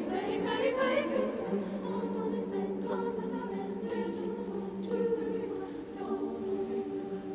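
A mixed-voice high school choir singing a slow passage in long held chords, moving to a new chord about six seconds in.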